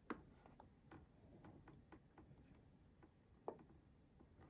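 Near silence with faint, scattered handling clicks and taps: one sharper click right at the start, a run of light ticks, and another click about three and a half seconds in, as a metal lighter is handled.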